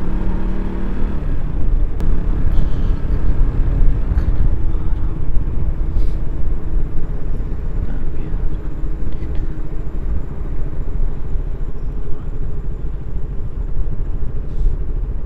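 KTM RC 200 single-cylinder motorcycle on the move: its engine holds a steady note for about a second, then is mostly buried under a heavy, steady rumble of wind and road noise.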